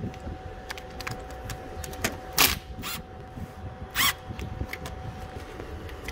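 Hand tools clicking and clinking on metal while the alternator mounting bracket is being unbolted, in irregular light clicks with two louder metallic clanks about two and a half and four seconds in. A faint steady hum runs underneath.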